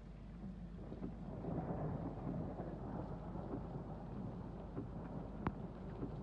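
Thunder rumbling: the rumble builds about a second in and holds for a few seconds before easing, over steady low background noise. One sharp click sounds about five and a half seconds in.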